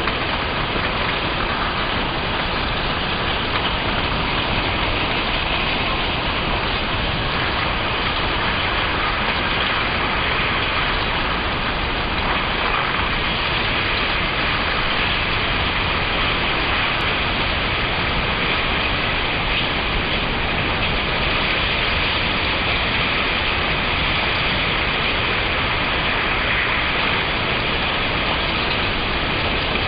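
Tsunami floodwater surging through streets: a steady, loud rushing noise with no breaks.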